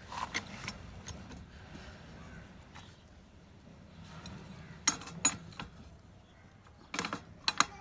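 Short, sharp metallic clinks and knocks from metal plumbing fittings and tools being handled. They come in a few clusters: a couple just after the start, two about five seconds in, and a quick run near the end.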